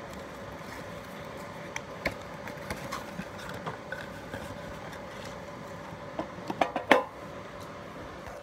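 A small cardboard box being handled and opened, with scattered light clicks and scrapes, then a quick cluster of sharp knocks and clinks about six to seven seconds in as a metal mini tin is taken out and set down on a wooden floor. A faint steady hum runs underneath.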